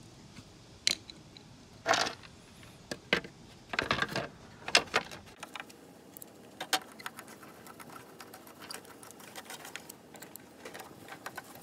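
The plastic deck plate of a Razor electric scooter being set back over the battery compartment and screwed down by hand with a screwdriver: a series of clicks and knocks, loudest between about two and five seconds in, then lighter rapid ticking.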